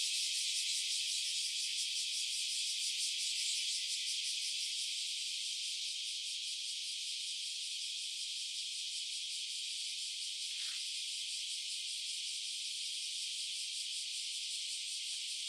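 A steady high-pitched hiss, easing slightly over the first several seconds and then holding level.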